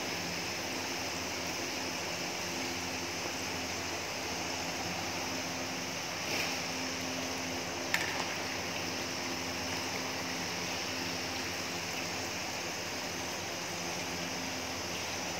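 Fish deep-frying in a wide wok of hot oil: a steady sizzle and bubbling, with a faint steady hum underneath and two light knocks about six and eight seconds in.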